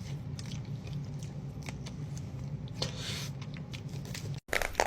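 Close-up mouth sounds of someone eating a soft mousse pastry: scattered small wet clicks and squishes over a steady low hum, broken by a sudden brief cut near the end.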